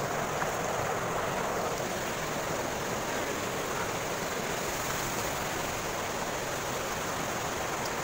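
Shallow stream running over pebbles: a steady rush of flowing water.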